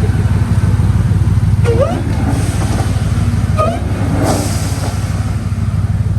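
Supercharged Hemi V8 idling with a deep, steady rumble.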